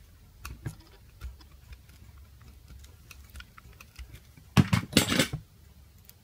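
A small knife blade picks and scrapes at the blue insulation tape on a small ferrite transformer, making faint scattered clicks. About four and a half seconds in there is a loud crackling rip, under a second long, as the tape is peeled and torn away.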